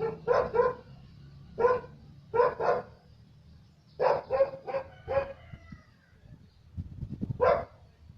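A dog barking: about ten short barks in clusters of two or three, separated by pauses of about a second.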